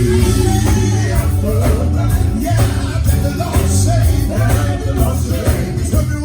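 Live gospel band music: heavy bass, drums and electric guitar playing steadily, with singing voices over it.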